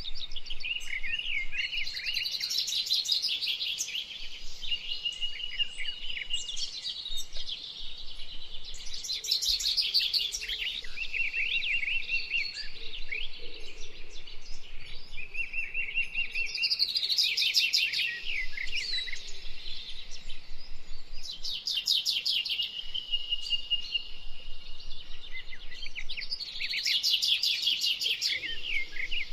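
Birds singing in repeated bursts of high chirps, short steady whistled notes and fast trills, a phrase returning every five or six seconds.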